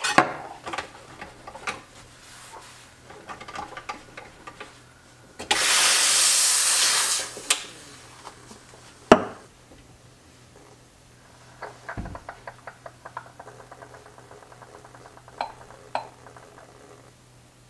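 Espresso-making sounds at a Gaggia espresso machine: light clinks and handling of metal equipment, then a hiss of about two seconds from the steam wand being purged into a cloth, about five and a half seconds in. A single sharp knock comes about nine seconds in, and soft clatter near the end as a pitcher is poured into a glass.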